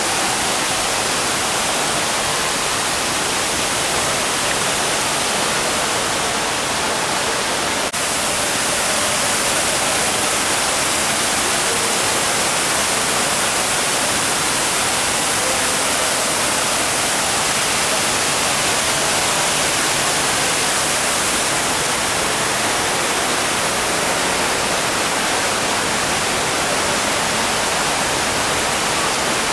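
Steady rushing hiss of water in the Cloud Forest dome, even and unbroken throughout, with a single brief click about eight seconds in.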